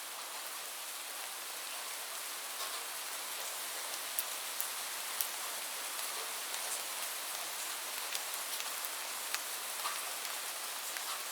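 Light rain: a steady, even hiss of falling rain, with scattered sharp ticks of individual drops hitting a surface.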